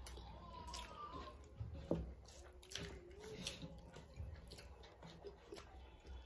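Close-up eating sounds of two people eating rice and fish curry by hand: wet chewing and lip smacks, and fingers squelching through the rice, with many small clicks and one sharper click about two seconds in.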